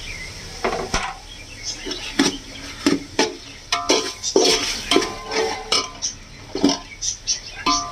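A metal spoon scraping and knocking against a metal cooking pot while tomatoes are stirred and sautéed in oil, with irregular strokes about twice a second. The pot rings briefly a few times, around the middle and near the end.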